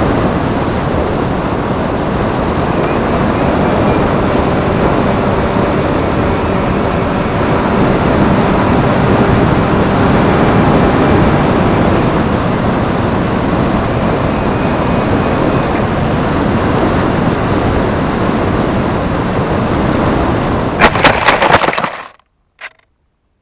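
Steady rush of wind and propeller noise picked up by the onboard camera of a small electric flying wing in flight. About 21 s in, a quick run of hard knocks comes as the wing hits the ground. The sound then cuts off suddenly, apart from one short knock just after.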